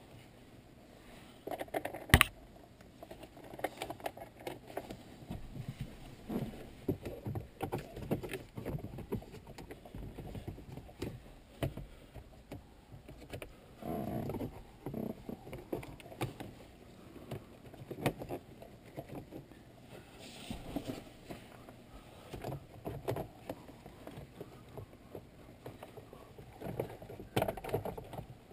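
Plastic dash trim panel of a Toyota 4Runner being worked into place by hand: irregular plastic knocks, clicks and rustling as it is pushed and wiggled around the wiring, with a sharp click about two seconds in.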